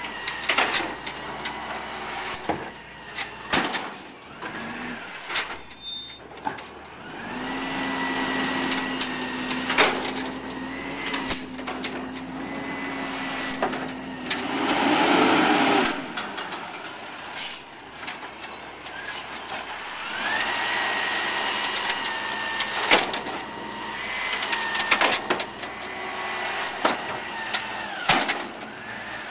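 Peterbilt 320 garbage truck with an Amrep automated side-loader arm at work: the engine revs up with a rising hydraulic whine, held for several seconds, twice as the arm cycles carts, with carts and the arm knocking and banging. A loud air-brake hiss comes about halfway through.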